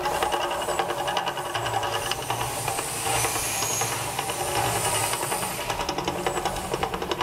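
Fire jets of the Mirage's artificial volcano hissing as flames and a fireball shoot up, heaviest about three to five seconds in, over the show's rhythmic soundtrack.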